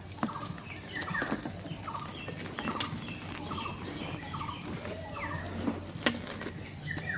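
Reformed gym chalk crushed with scattered sharp crunches and crackles, the loudest about six seconds in. Behind it a bird repeats short chirps about twice a second.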